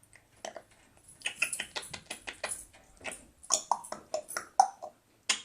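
Congo African grey parrot making a rapid run of clicks and short chirps, several a second, with a few louder pitched chirps in the second half.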